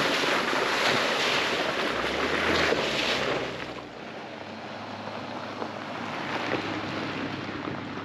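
Jeep pickup splashing through a shallow creek crossing, its tyres throwing up water, for the first three or so seconds. The noise then drops to the quieter sound of the truck driving along a dirt road, with a faint low engine hum.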